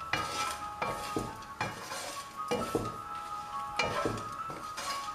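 Spatula knocking and scraping against a frying pan while stirring flattened rice (poha): irregular knocks about one or two a second.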